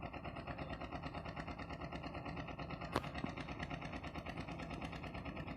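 A motor running steadily with a fast, even pulse, and one sharp click about three seconds in.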